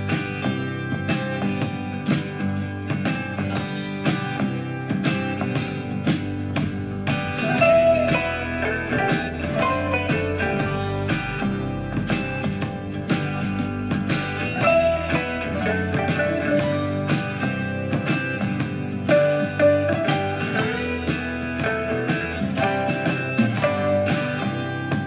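Country/folk-style guitar music played back through a small portable Bluetooth speaker, with plucked and strummed guitar and a steady beat.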